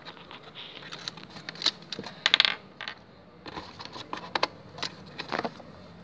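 Small clicks, taps and clinks from a plastic Barbie doll and toy furniture being handled and set down, with a brighter clatter a little over two seconds in.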